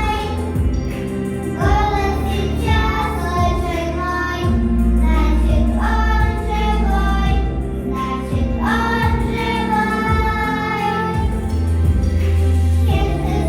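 Children singing a song in melody over an instrumental backing track with sustained bass notes.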